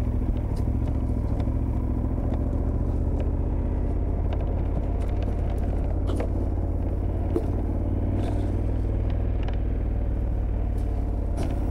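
KTM 1290 Super Adventure's V-twin engine running steadily on a dirt forest track, with a few faint ticks over the drone.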